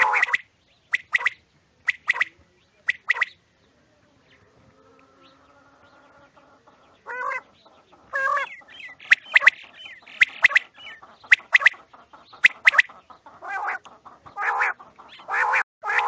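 Several caged quails calling in short, repeated calls. The calls come about once a second at first, pause for a few seconds, then many birds call over one another from about seven seconds in.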